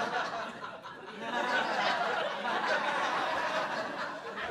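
A comedy club audience laughing together, fading briefly about a second in and then swelling again.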